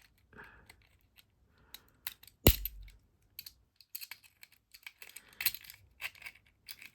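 Small metal and plastic clicks and clinks of a cheap lock being taken apart by hand, with one sharp knock about two and a half seconds in.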